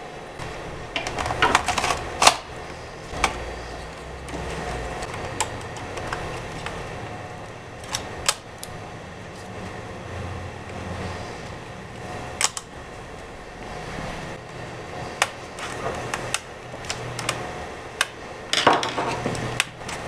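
Irregular clicks, taps and scrapes of hand work on a Toshiba Satellite laptop's plastic bottom case: a hand screwdriver turning small case screws and parts being fitted into the underside bays. A few louder clusters of clicks come about two seconds in and again near the end.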